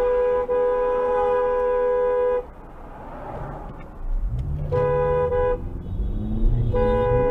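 Car horn with two notes sounding together: one long honk that cuts off about two and a half seconds in, then two shorter honks near the end.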